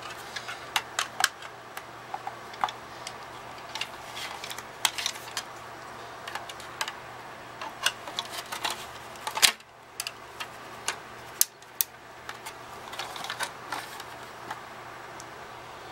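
Irregular small plastic clicks and snaps as the clipped plastic housing of a Respironics sleep apnea machine is pried and worked apart with a thin metal tool, with one sharper snap about nine and a half seconds in.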